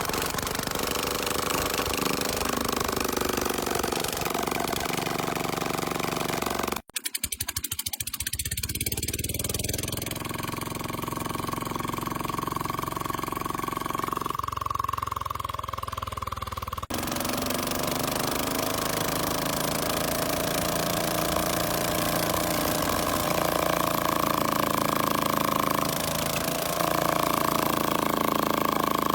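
Generator engine running steadily with a low pulsing chug and a steady whine. The sound cuts out abruptly for a moment about a quarter of the way in, then picks up again and shifts in tone a couple of times.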